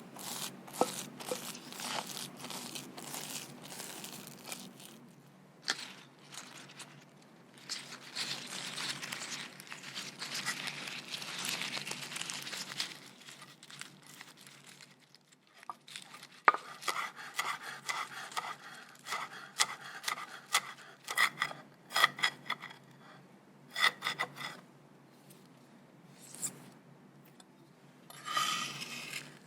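Kitchen baking work: rubbing and scraping for the first dozen seconds, then a run of sharp clicks and light ringing taps, like a utensil knocking on a bowl or tray, with a short rustle near the end.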